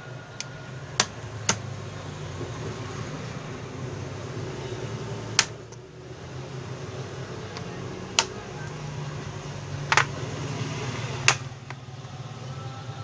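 Plastic bottom case cover of an HP 14s laptop being pressed back on, its clips snapping into place in six sharp clicks spread over about ten seconds, over a steady low hum.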